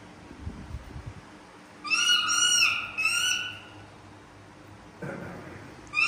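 Baby monkey giving two short, high-pitched calls, about two and three seconds in, with another starting right at the end.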